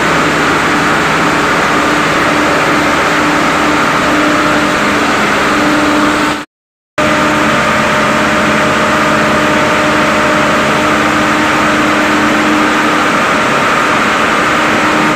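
Diesel engine of a fire pump running steadily with a constant hum, cutting out for a moment about six and a half seconds in.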